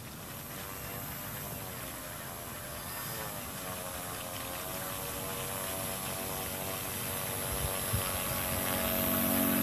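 E-flite Power 90 brushless electric motor on 8S turning a 17×8 propeller on an RC seaplane taxiing on water: a steady motor-and-prop whine that dips and rises in pitch a couple of times with the throttle and grows steadily louder as the plane comes closer.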